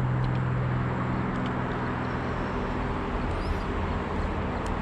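Steady rush of flowing river water, with a low hum that fades out about three seconds in.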